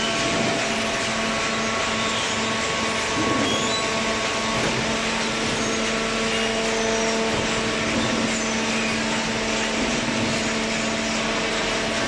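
Horizontal hydraulic carton baler running: a steady machine hum with a few held tones over an even mechanical noise.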